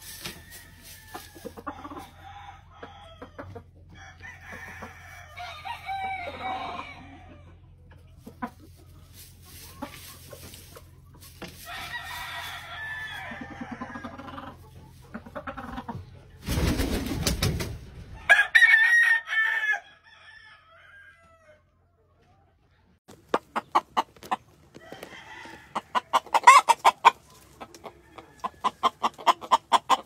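Gamecock roosters clucking and crowing in several bursts, with a loud rush of noise about sixteen seconds in. After a short pause, a run of quick, repeated clucks fills the last seconds.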